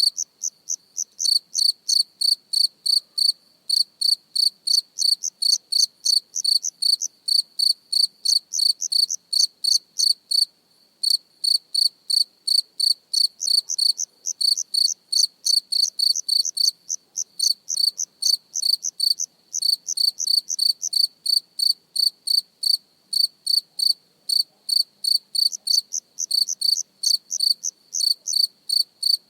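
A cricket chirping close up: a steady run of short, high chirps, about three a second, with a brief pause about ten seconds in.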